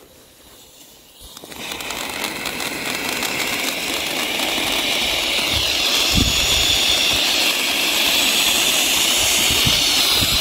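Ground fountain firework (a 'volcano' fountain) catching from its fuse: quiet sputtering at first, then from about a second and a half in a steady, loud, high hiss of the spark spray that builds and holds.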